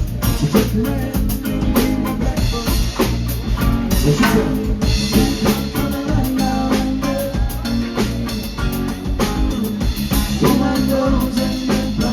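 Background pop music with a steady drum-kit beat, snare and bass drum.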